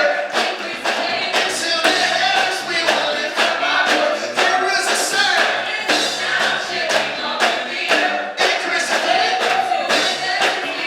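Music with singing voices over a steady drum beat.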